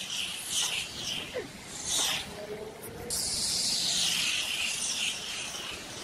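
Tyres hissing on a wet road surface, in waves that swell and fade, the longest swell from about three to five seconds in.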